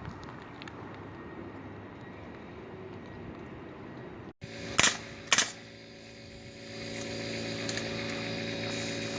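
Two sharp shots from a pneumatic nail gun, about half a second apart, driving nails into roof plywood. Before them is a steady rush like wind on the microphone, and after them a steady machine hum.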